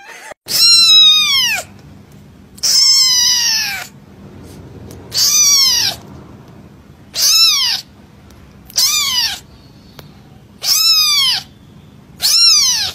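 A newborn kitten mewing: seven high, thin cries, each falling in pitch, repeated every couple of seconds.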